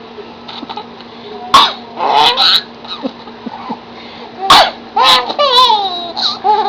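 Harsh coughing: two sharp coughs, about a second and a half and four and a half seconds in, each followed by high, wavering voiced sounds that slide down in pitch.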